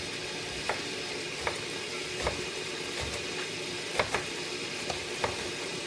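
Knife cutting cucumber on a cutting board, about eight uneven knocks over a steady frying sizzle from a pan.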